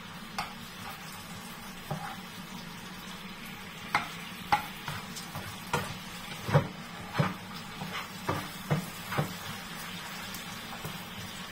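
Broccoli and other vegetables sizzling in a frying pan while a spatula stirs them. Sharp taps and scrapes of the spatula against the pan come through the steady sizzle, most of them in the second half.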